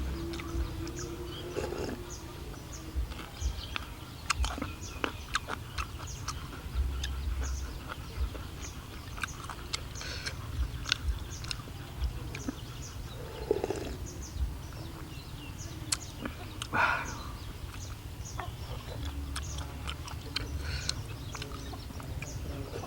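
Eating sounds: chewing of chicken curry noodles with many small, sharp clicks throughout. A few short animal calls come through behind it, the clearest about two-thirds of the way in.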